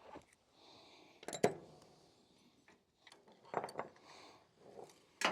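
Metal clanks and clinks of hand tools working on a trailer-mounted 3,500 lb winch as it is unbolted. There are a few sharp knocks, the loudest about a second and a half in, another about three and a half seconds in, and one at the end.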